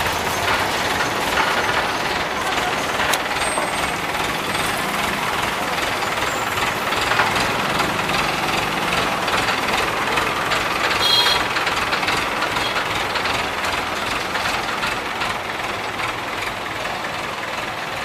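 Diesel engine of an Escorts Hydra 12 hydraulic crane running steadily under load while it holds the slung road roller. A brief high tone sounds about eleven seconds in.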